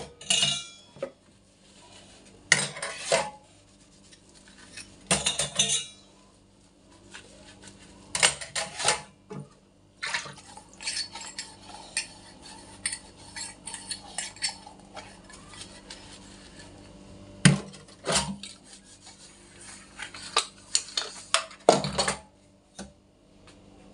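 Steel utensils and dishes clattering and clinking against each other and a stainless steel sink as they are scrubbed and set down by hand, in irregular bursts with short pauses between.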